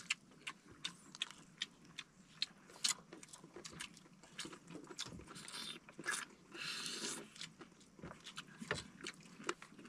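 Close-up eating sounds as squid adobo is eaten by hand: chewing and lip smacks, with small scattered clicks of fingers and food against plastic containers, and two short soft hisses about halfway through.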